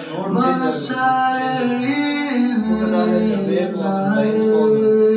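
A man singing a melodic vocal line with long held notes that slide between pitches, with music underneath.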